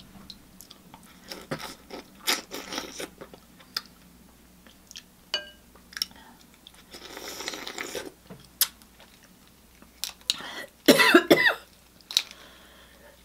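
A person eating close to the microphone: chewing and mouth clicks throughout, with a hissing patch about seven seconds in, then a few loud coughs about eleven seconds in.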